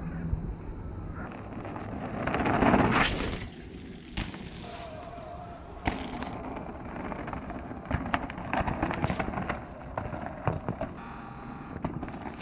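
Mountain bike riding along a dirt trail: tyre noise with rattles, a loud rush of noise about two to three seconds in, and clusters of clicks and knocks from the bike and trail later on.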